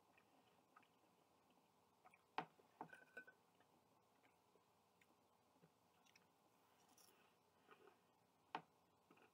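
Near silence with a few faint clicks and smacks of someone handling and chewing bacon, the sharpest about two seconds in and again near the end.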